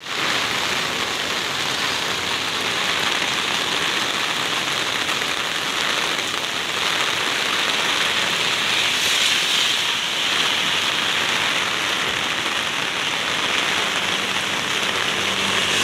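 Heavy rain falling steadily, an even dense hiss of downpour on surfaces.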